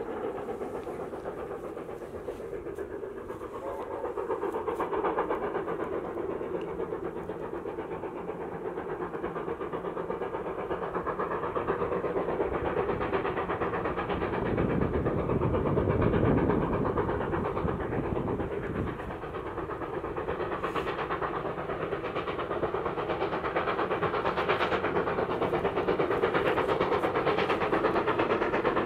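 Steam locomotive 75014 Braveheart, a BR Standard Class 4 4-6-0, working hard up a climb with a train: a steady run of exhaust beats that grows louder as it approaches.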